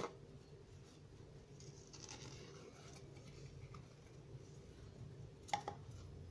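Faint handling sounds of jute twine being wound round a plastic bottle: a click at the start, a soft rustle about two seconds in, and a couple of short taps about five and a half seconds in, over a steady low hum.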